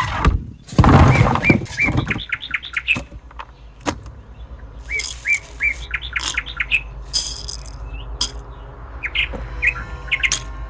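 Birds chirping: two runs of quick repeated chirps, among scattered sharp clicks and knocks.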